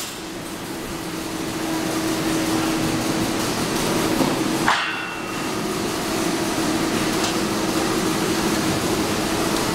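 Automatic chain link fence machine running, a steady mechanical hum with metallic knocking, and one sharp clack about five seconds in.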